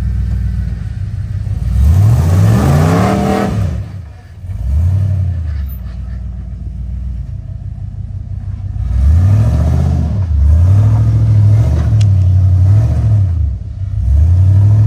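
Modified Jeep rock crawler's engine revving as it climbs a rock ledge. One big rev rises and falls about two seconds in, a smaller one follows, then a string of quick revs runs through the second half.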